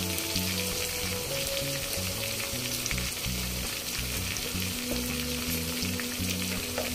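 Hot oil sizzling steadily in a kadai around fried potato chunks and a freshly added onion, tomato, ginger and garlic paste, with a constant crackle of many small pops.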